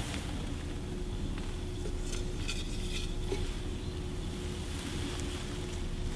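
A hand rummaging among folded paper slips in a glass bowl, with faint rustling and a few light ticks against the glass about two to three seconds in, over a steady low hum.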